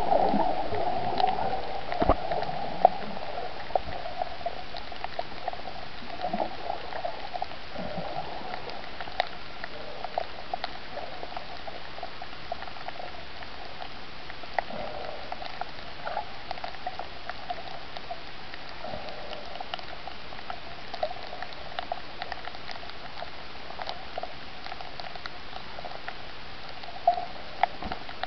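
Underwater reef ambience heard through the camera: a steady muffled wash with scattered sharp clicks and crackles.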